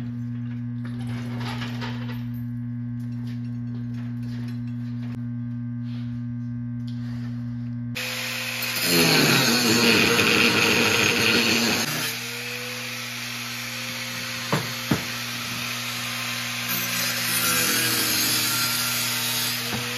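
A steady low hum, then a corded angle grinder cutting a steel plate: a few seconds of loud grinding, then the disc spinning with a steady whine, then grinding again near the end. Two sharp clicks come in between.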